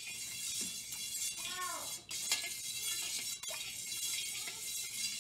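Wire whisk stirring liquid in a stainless steel mixing bowl, scraping and clinking against the metal sides.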